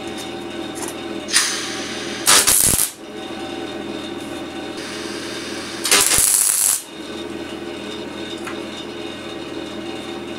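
Electric welding of a sheet-steel patch onto a car fuel tank: three short bursts of arc noise about a second in, at two and a half seconds and at six seconds, the longest under a second. Between them runs a steady hum.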